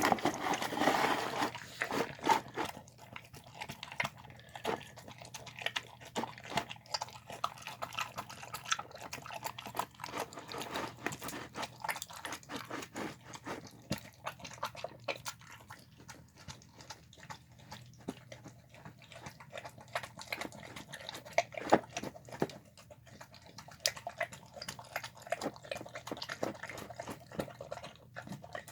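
A dog eating a wet mush of chicken, rice and beans: a steady, irregular run of quick wet chewing smacks, licks and clicks.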